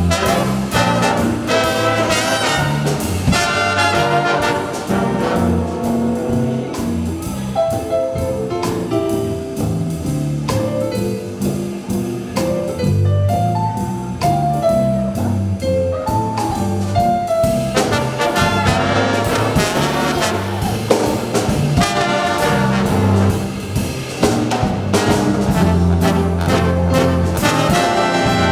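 A big jazz band playing live: trumpets, trombones and saxophones over piano, electric guitar, bass notes and drum kit. The full band plays near the start and again from about two-thirds of the way through, with a sparser single melodic line carrying the middle.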